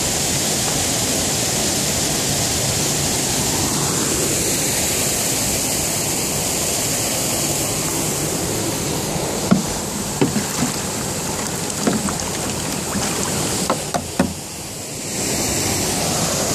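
Steady rush of water flowing over a concrete weir, with a few light knocks in the second half.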